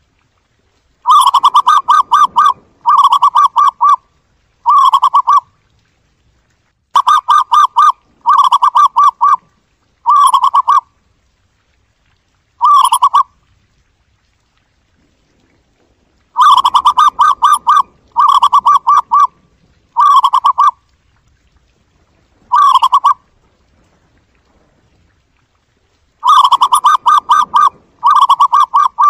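Zebra dove song: bouts of rapid, staccato trilled coos, three or four phrases to a bout, each phrase shorter than the one before. The bouts repeat every few seconds with silence between them.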